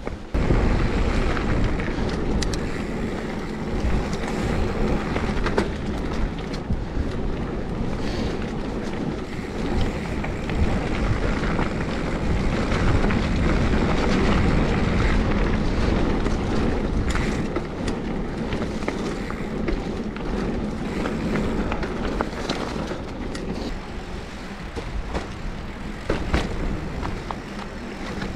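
Mountain bike riding a forest trail: a steady rush of tyre and wind noise with scattered clicks and rattles from the bike over rough ground. It starts abruptly and eases a little near the end.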